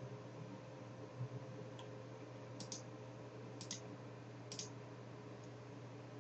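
Faint computer mouse clicks, three of them sharp double clicks about a second apart, over a steady low hum.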